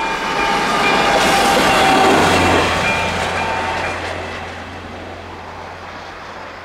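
A train passing over the level crossing, its rushing noise rising to a peak about two seconds in and then fading. The AŽD 71 crossing's electronic warning bell rings through the first part and stops about four seconds in, as the crossing switches off once the train has cleared.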